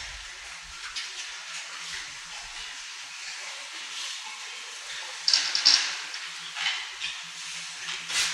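Sow barn ambience: a steady hiss with sows shuffling and scuffling in the pen around the electronic sow feeder, and a few short louder noisy bursts, the loudest a little past five seconds in.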